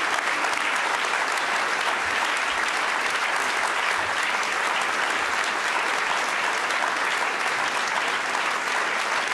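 Audience applauding: dense, steady clapping from many hands that holds at an even level.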